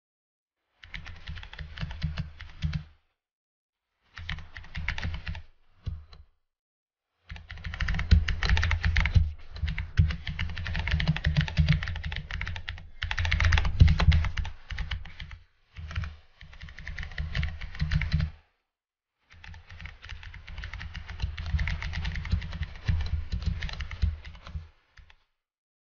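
Typing on a computer keyboard: runs of rapid keystrokes in several bursts of one to eight seconds, broken by short silent pauses.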